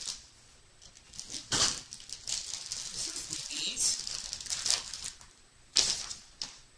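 Blind-box toy packaging crinkling and tearing as it is opened by hand: irregular rustles with a sharp crackle about a second and a half in and the loudest one near the end.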